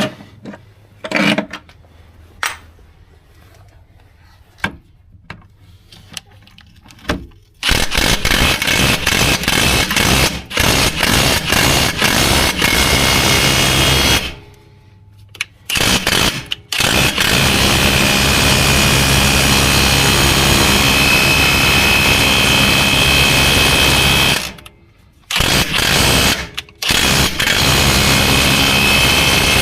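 Ridgid brushless 1/2-inch mid-torque cordless impact wrench hammering in long runs of several seconds, the longest about seven seconds, with a few brief blips in the first seconds and short pauses between runs.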